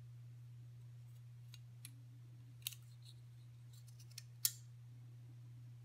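Small metal clicks of a disassembled Maker utility knife's metal frame plates and parts being handled and pulled apart: a handful of sharp clicks, the loudest about two and a half and four and a half seconds in, over a steady low hum.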